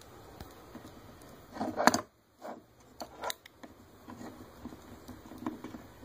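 A plastic action figure being handled and set down on a wooden tabletop: a knock-and-clatter about two seconds in, then scattered small clicks and rubbing as the figure is positioned.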